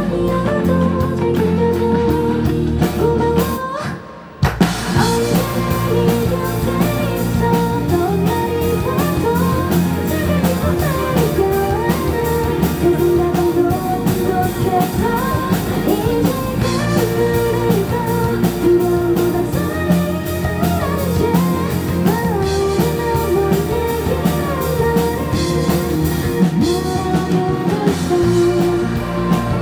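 Live pop-rock band playing: electric guitars and drum kit under a woman's lead vocal. The music drops out briefly about four seconds in, then comes back in full.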